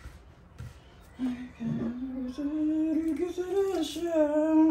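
A woman humming a slow, wordless tune in long held notes that step up and down in pitch, starting about a second in.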